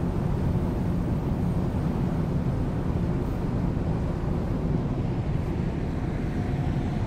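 Steady low rumble of a car ferry's engines as it berths, with wind buffeting the microphone.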